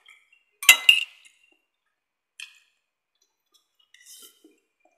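Metal spoon clinking against a ceramic plate while scooping rice: a loud double clink about a second in, then lighter clinks in the middle and near the end.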